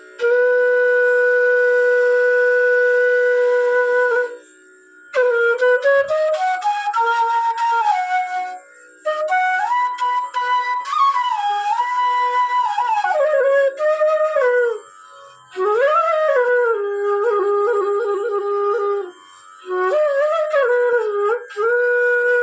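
B bass bansuri (bamboo flute) playing: one long held note for about four seconds, then short melodic phrases with slides between notes, broken by brief pauses.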